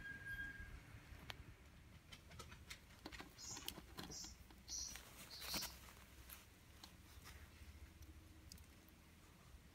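Very quiet, with faint scattered clicks and scratchy rustles and a few short hissy rustles in the middle: a Pacific parrotlet shifting and preening on a towel.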